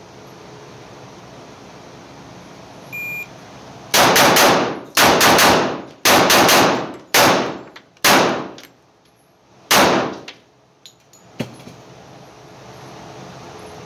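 A shot timer's start beep, then about ten shots from an HK45 Compact .45 ACP pistol, fired in quick pairs and strings, each ringing off the walls of an indoor range. Two light clicks follow near the end.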